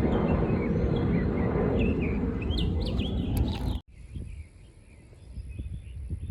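Small birds chirping over a loud, uneven low rumble. About four seconds in, everything drops out abruptly, and a quieter low rumble with faint chirps follows.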